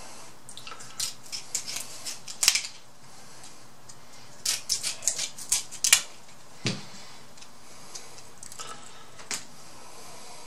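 Kitchen scissors cutting through Atlantic red crab leg shell: runs of sharp crisp clicks and cracks as the blades snip and the shell splits, in two clusters, with one duller knock just after the second.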